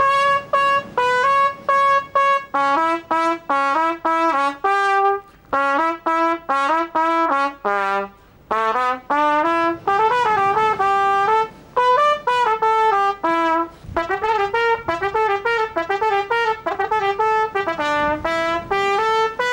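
Solo trumpet playing a lively melody of short, separate notes with a few brief pauses, quickening into fast runs in the second half.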